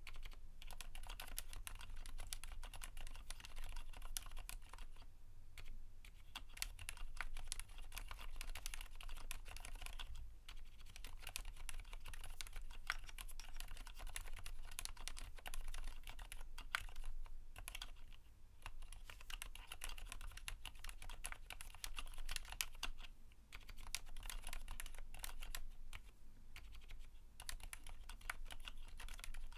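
Typing on a Keychron Q1 mechanical keyboard with lubed 62 g Cherry MX Silent Black linear switches and PBT keycaps: a dense run of soft, damped keystrokes, with several short pauses.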